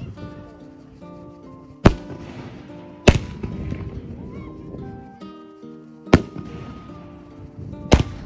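Four loud bangs of a 500-gram firework cake's shells bursting: two close together about two seconds in, then two more spread over the second half. Background music plays between them.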